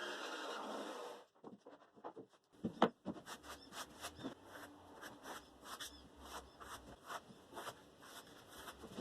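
A steady noise cuts off about a second in, followed by light, irregular clicks, taps and rubbing of wood being handled, a few per second, with one sharper knock about three seconds in.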